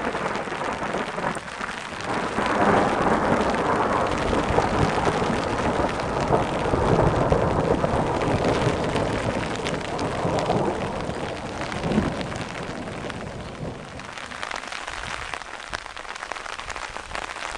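Steady rain falling, with a long rumble of thunder that dies away over the last few seconds and leaves the patter of raindrops.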